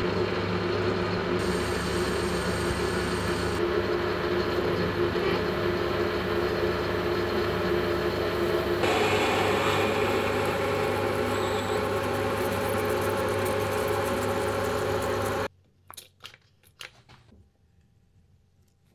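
Metal lathe running while a center drill cuts into the end of a steel shaft: a steady machine hum with the drill's cutting noise over it, growing brighter about nine seconds in. About fifteen seconds in the running sound stops abruptly, leaving only a few light clicks.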